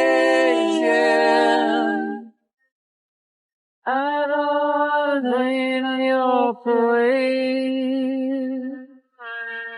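Isolated pop vocal track with no instruments: long held sung notes layered in harmony. The voices stop for about a second and a half, then come back in long sustained phrases.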